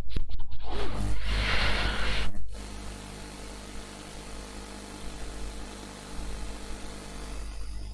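Steady electrical mains hum and hiss from a recording microphone, with a louder noise for about the first two and a half seconds before it settles to the quieter hum.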